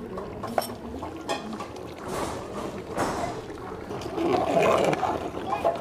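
Chicken korma sizzling and bubbling in a large aluminium pot while a metal slotted spatula stirs through it. There are a few light knocks of the spatula against the pot, and the stirring grows louder near the end.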